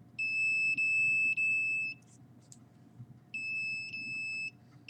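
Electronic beeper sounding a high, steady tone in long beeps: one of nearly two seconds, a second of just over a second, and a third starting at the end.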